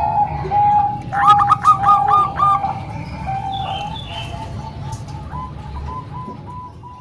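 Several zebra doves (perkutut, Bangkok and local types) cooing together in overlapping strings of short, rolling notes. A louder, higher-pitched bird joins about a second in, and the cooing grows softer toward the end.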